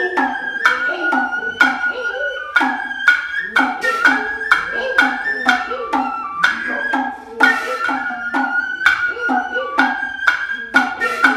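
Noh hayashi ensemble: a nōkan bamboo flute plays a high, piping melody over sharp, dry strokes of the kotsuzumi shoulder drum and ōtsuzumi hip drum, about one to two strokes a second. The drummers' drawn-out calls (kakegoe) sound between the strokes.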